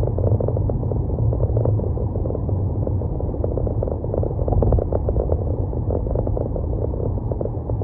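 A car driving along: a steady low rumble of road and tyre noise, with faint small ticks over it.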